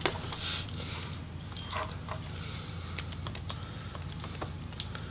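Small screwdriver working the screws out of a MacBook Pro's logic board: light, irregular metallic clicks and taps of the bit and screws, over a steady low hum.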